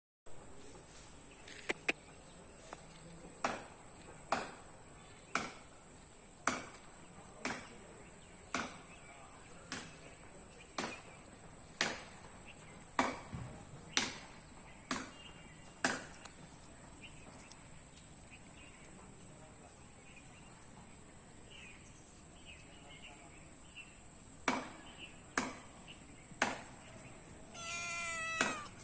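Sharp clicks about once a second over a steady high-pitched tone, with a gap in the middle, then a cat meowing once near the end.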